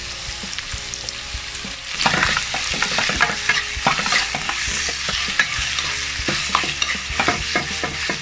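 Garlic and onion frying in hot oil in a pan, sizzling steadily. About two seconds in the sizzle jumps louder as chicken strips go in, and the spatula scrapes and clicks against the pan as they are stirred.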